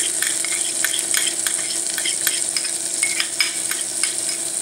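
Diced onions frying in hot ghee with cumin seeds: a steady sizzle with frequent short crackles and pops.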